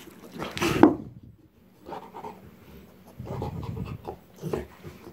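Rottweiler panting and mouthing a football in several short bursts, the loudest just under a second in, with a brief lull after it.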